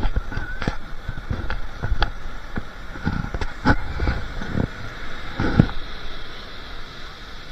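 Ocean surf washing over the sand close by, with irregular splashes and knocks that ease off near the end.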